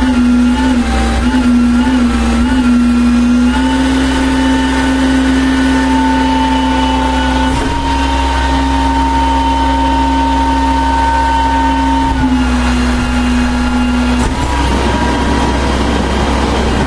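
1996 Volvo WX64 garbage truck running over a constant low rumble, with a strong steady whine. The whine wavers at first, steps up in pitch twice in the first eight seconds, drops back about twelve seconds in, and breaks off briefly near the end.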